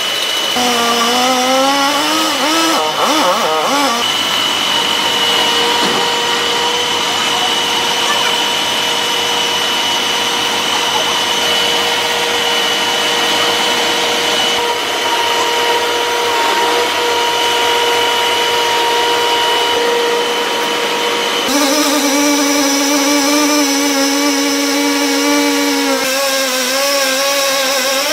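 Engine-driven tree-cutting machinery running continuously. The engine pitch wavers near the start and the sound changes abruptly twice in the last third.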